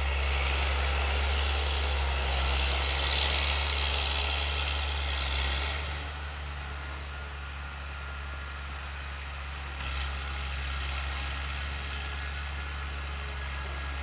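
Diesel engine of a heavy forestry machine running with a steady low drone, a little quieter from about six seconds in.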